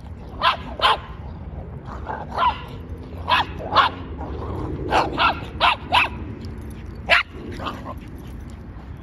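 A small dog barking during play, about ten short sharp barks in uneven clusters.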